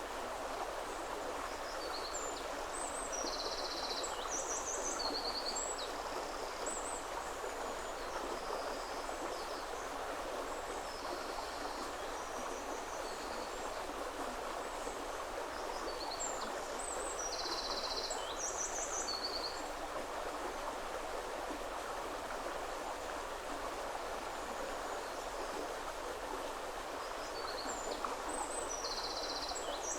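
River water flowing steadily over stones, with a small songbird singing short, high song phrases three times, roughly every twelve seconds.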